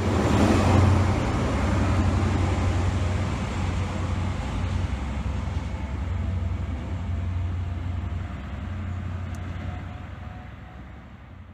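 Diesel High Speed Train (Class 43 power car) engine drone with wheel and track rumble, loudest at first and then fading steadily as the train moves away.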